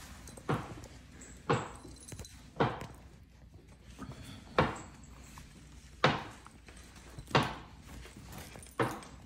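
About seven short, sharp knocks, irregularly spaced one to two seconds apart, each dying away quickly.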